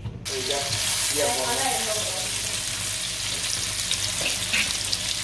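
Marinated potato skewers sizzling in hot oil in a frying pan, the sizzle starting suddenly a moment in and then holding steady.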